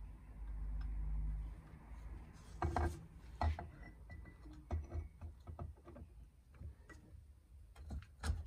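Handling noise of a 250 cc ATV engine's cylinder head being fitted by gloved hands onto the cylinder: a low rubbing rustle in the first second or so, then scattered light knocks and clinks of metal parts.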